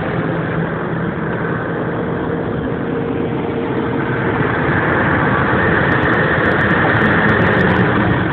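New Holland T7.220 tractor's six-cylinder diesel engine running steadily while working a seed drill across the field, heard from inside the cab. It gets slightly louder about halfway through.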